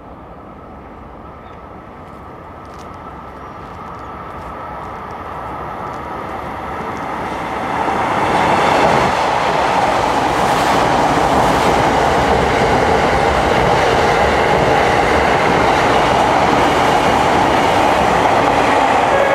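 E001 series Train Suite Shiki-shima passing through a station without stopping. The rumble of wheels on rail builds as it approaches and peaks about eight seconds in. It stays loud as the cars run past.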